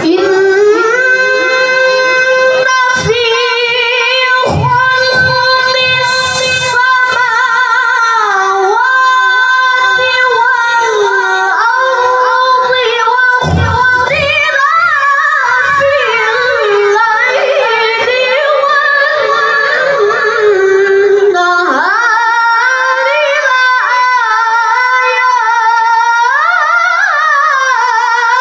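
A high solo voice chanting Quran recitation (tilawah) in long melismatic phrases, with held notes, wavering ornaments and sliding pitch changes.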